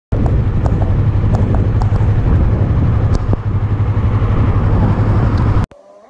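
Strong wind buffeting the microphone: a loud, unsteady low rumble with a few scattered clicks. It cuts off suddenly near the end.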